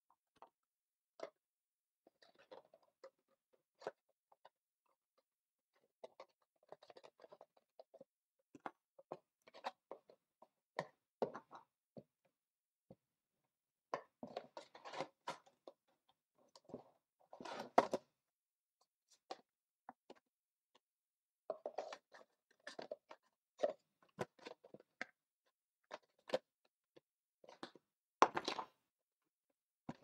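Hands handling a cardboard CPU retail box and its inner bracing: irregular light clicks, taps and scrapes, with a few louder rustling clusters in the middle and one sharp knock near the end.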